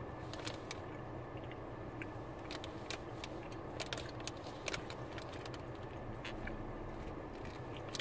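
Chewing a soft, sticky Hi-Chew fruit candy close to the microphone: irregular small wet mouth clicks and crackles over a steady low background hum.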